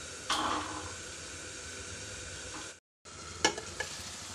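Onion-tomato masala sizzling steadily in a covered kadhai, with a short noisy burst near the start. After a brief dropout there are two sharp metal clinks as the steel lid is moved on the pan.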